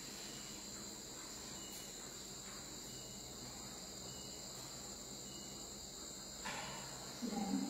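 Steady high-pitched chorus of crickets in the background, with a brief voice sound near the end.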